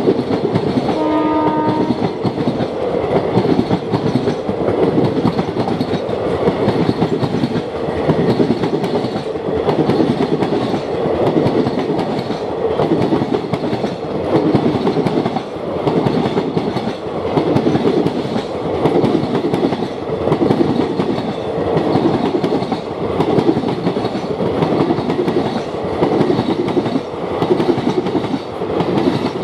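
Passenger train coaches rushing past at speed, the wheels and bogies clattering over the rail joints in a steady rhythmic surge every second or two. A short horn note sounds about a second in.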